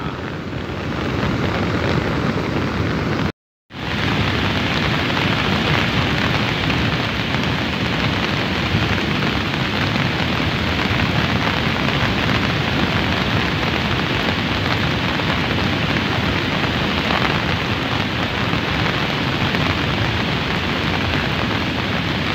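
Steady rushing of a cold lahar flood: muddy water and volcanic debris pouring down the river channel. It cuts out for a moment about three and a half seconds in.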